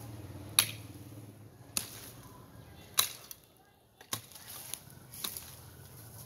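A hoe blade striking into the ground in repeated blows about a second apart, each a sharp thud; the strongest hit comes about half a second in.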